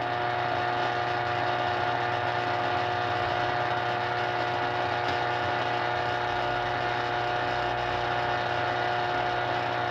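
Telluric (earth-current) VLF signal picked up by a Philco 124A frequency selective voltmeter and played through a loudspeaker. It is a steady hiss, the 'sea of popping' of natural electrical earth activity, with several steady hum tones layered over it. The speaker calls these man-made mains harmonics, most likely from neighbours' non-linear loads such as LEDs and compact fluorescents.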